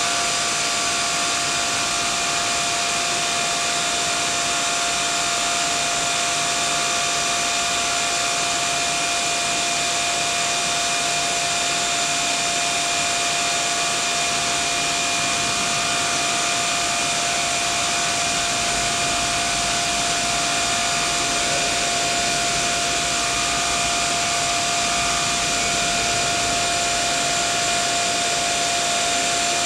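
Steady machine whir, even and unchanging, with several steady whining tones over it.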